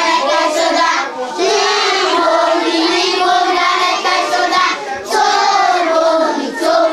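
A group of children singing a song together, with short breaks about a second in and again about five seconds in.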